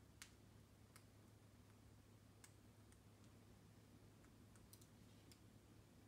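Near silence with a few faint, scattered clicks of an Indian ringneck parakeet's beak nibbling the lace of a toy shoe, over a low steady hum.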